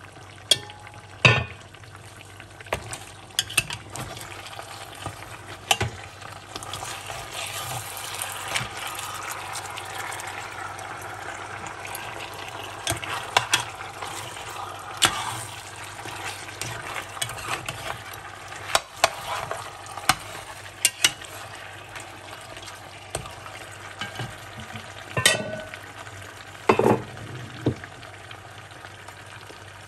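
Goat meat frying in tomato purée in an enamelled pot, a steady sizzle. A metal spoon stirs it, with sharp knocks and scrapes against the pot every few seconds.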